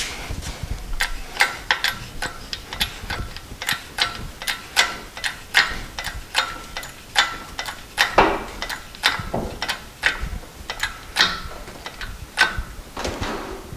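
Hydraulic cherry picker (engine hoist) being pumped by hand to lift a load of over 400 pounds: a steady run of short metallic clicks, about two or three a second, with two louder, longer rasps about eight and thirteen seconds in.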